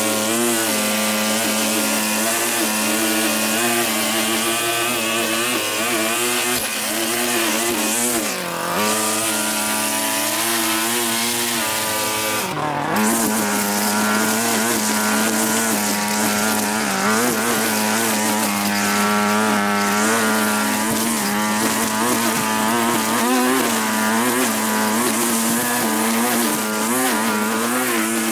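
Small petrol engine of lawn-care equipment running steadily at working speed. Its pitch wavers, then sags sharply and recovers twice, about a third of the way in and again near halfway.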